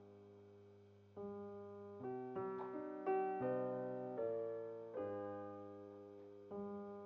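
Slow, calm background piano music: sustained chords struck about once a second and left to fade.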